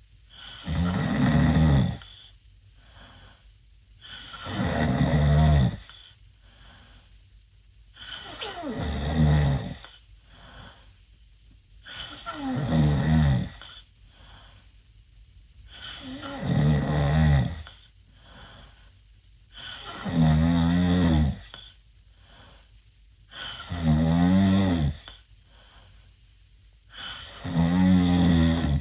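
A 16-year-old boy snoring loudly through an open mouth while asleep: eight buzzing snores, one about every four seconds and each lasting about a second and a half, with faint breathing between them.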